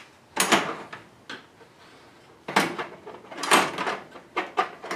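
Metal scraping and knocking as the reflector panels of a GoSun evacuated-tube solar cooker are worked open inside a barbecue housing. It comes as a handful of short sliding scrapes, one about half a second in and several more between two and a half and four seconds.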